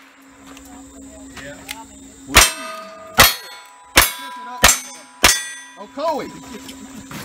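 Single-action revolver fired five times in quick succession, roughly two thirds of a second apart, each shot followed by the ring of a hit steel target. The shots start about two and a half seconds in, after a short pause while the second revolver is drawn.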